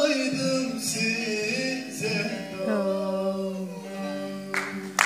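A man singing a Turkish folk song to his own plectrum-picked string accompaniment, closing the song on a long held note. Applause breaks out just before the end.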